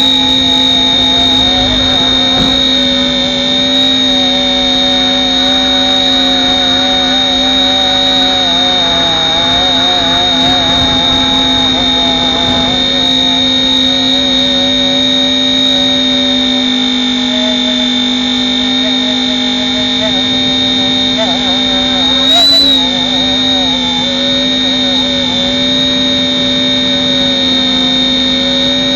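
RC helicopter in flight heard from a camera mounted on its front: a loud, steady high motor-and-gear whine with rotor noise, some of its tones wavering in pitch as the helicopter corrects against gusty wind. A brief bump about 22 seconds in.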